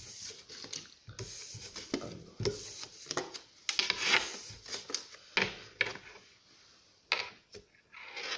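Tarot cards being gathered up off a wooden table: a run of papery slides, rustles and light taps, with a couple of sharper clicks near the end.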